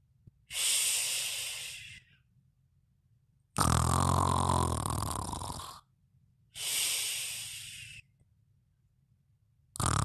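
A sleeper snoring in a slow, steady rhythm. A long, low, buzzing snore of about two seconds comes about 3.5 s in and another starts near the end, with airy, hissing breaths between them.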